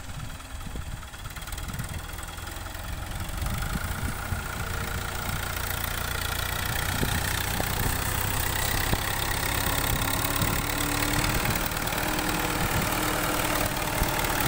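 Diesel engine of a New Holland 640 tractor running as it pushes sand with a front blade, growing louder over the first six seconds or so and then holding steady.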